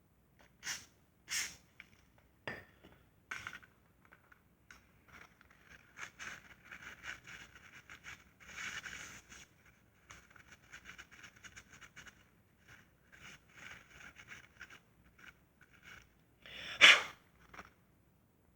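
Short hissing blasts of an aerosol spray on a transmission shift solenoid, with scraping and handling noise of the part between them and one louder spray burst near the end.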